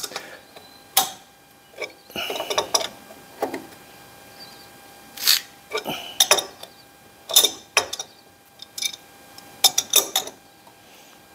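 Socket ratchet clicking and rattling in short, irregular bursts as it is swung back and forth to tighten the locking nut on a wheel hub puller, with metal clinks of the tool on the puller.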